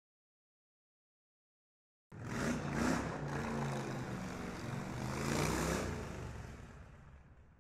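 After about two seconds of silence, a motor vehicle's engine cuts in suddenly, revving with rising and falling pitch. It fades away over the last couple of seconds as if driving off.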